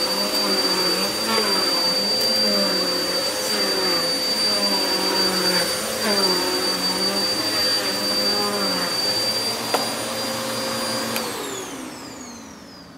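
Commercial upright vacuum cleaner running over an entrance mat, its lower pitch wavering up and down over a steady high whine. About eleven seconds in it is switched off, and the motor whine falls away as it spins down.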